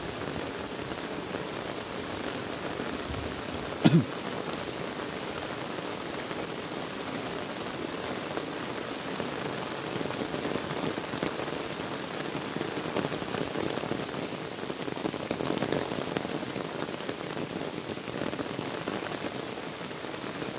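Heavy rain pouring steadily onto a lake surface and the muddy ground and grass beside it, with one sharp thump about four seconds in.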